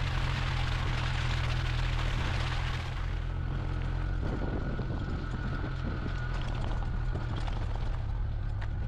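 A vehicle driving through shallow sea water on a beach, its engine running steadily under a splashing rush of water off the wheels. About three seconds in, the splashing dies away as it comes out onto wet sand, and the steady engine drone carries on.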